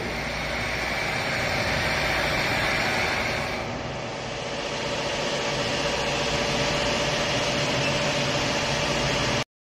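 Steady hum and hiss of factory machinery running. About four seconds in the hum changes, a higher hissing band dropping away as a steady mid tone comes in. The sound cuts off abruptly near the end.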